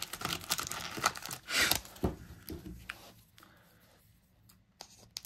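Rustling and crinkling of a foil Pokémon booster pack and trading cards being handled, with light clicks, dying away about halfway through.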